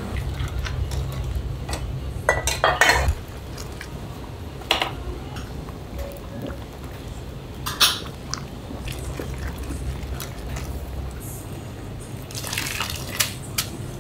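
Ramen noodle boiler in use: a steady low rumble under clinks of metal and dishes and splashing water. Near the end there is a longer splash as a mesh noodle basket is lifted dripping out of the boiling water.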